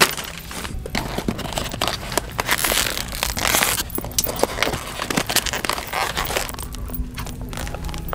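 Handling noise of shopping: packets rustling and crinkling amid many small clicks and knocks, with a denser burst of rustling about three seconds in.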